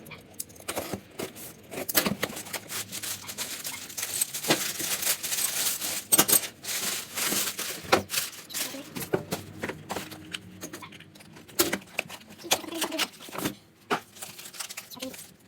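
Small metal kit parts clinking and knocking together while packaging rustles and tears, in irregular clicks and clatters.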